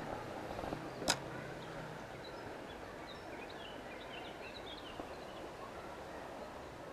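Steady rush of a shallow river flowing over riffles, with a single sharp click about a second in and faint high bird chirps in the middle.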